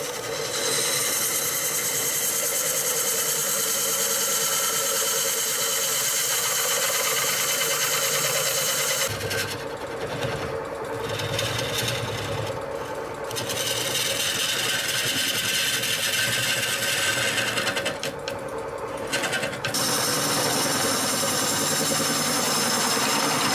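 A turning gouge cutting the inside of a large maple bowl spinning on a wood lathe: a steady hiss of shavings over a steady hum from the lathe. The cutting breaks off briefly three times in the middle stretch as the tool comes off the wood, then carries on.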